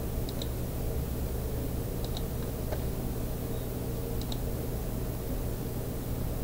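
Steady low hum and hiss of the recording background, with three faint computer mouse clicks about two seconds apart, each a quick press-and-release double click.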